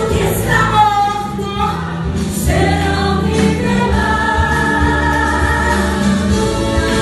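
Congregational worship singing: many voices singing a Portuguese praise song together in long held notes, over sustained instrumental backing.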